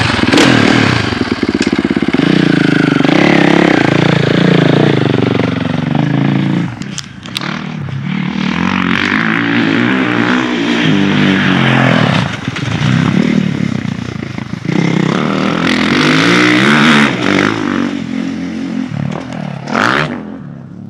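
Dirt bike engine revving hard on the track, its pitch climbing and dropping repeatedly as the throttle is rolled on and let off through braking and turns.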